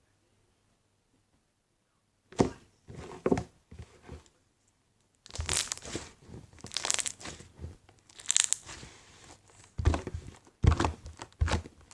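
Hands squishing and stretching Nickelodeon ice-cream slime with bead mix-ins, giving wet crackling and popping. Starts after a couple of seconds of quiet and gets busier about halfway through.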